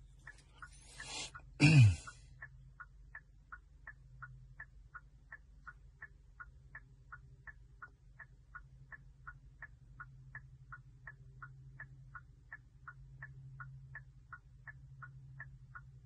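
A 2022 Kia K5's hazard-light indicator ticking steadily, about three ticks a second. Just before the ticking starts there is a short sound falling in pitch.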